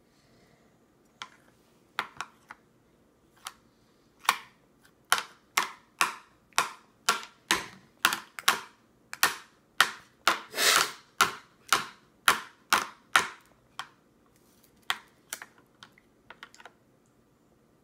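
Red plastic baby spoon banged repeatedly on hard plastic, sharp taps about two a second. A few scattered taps lead into the steady run, which tails off into scattered taps near the end.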